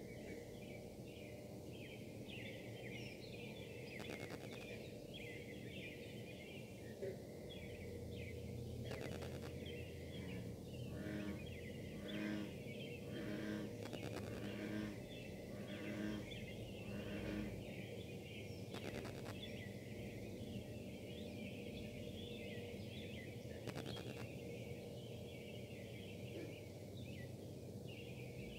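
Steady buzzing drone with higher-pitched harmonics from the Casting Solutions foundry's machinery running, a sound likened to tornado sirens. Scattered chirps run through it, with a few sharp clicks from wifi interference in the recording.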